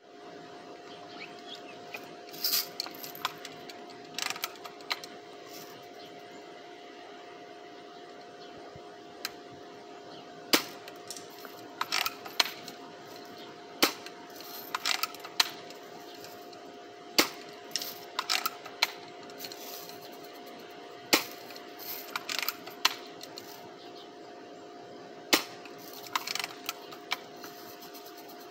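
Daisy Red Ryder lever-action BB gun being shot repeatedly: about eight sharp snaps several seconds apart, most followed by a quick run of small clicks as the lever is worked to cock it again.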